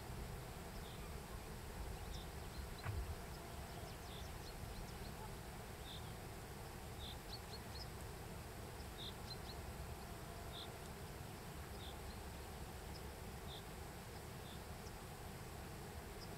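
Faint outdoor field ambience: short high chirps repeating irregularly every second or so over a low wind rumble, with one brief knock about three seconds in.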